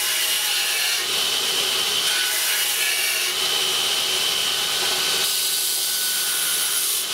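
Burr King Model 760 belt grinder running with a steel mower blade pressed against its abrasive belt for sharpening: a harsh, steady grinding hiss that swells and eases a few times as the blade is worked across the belt.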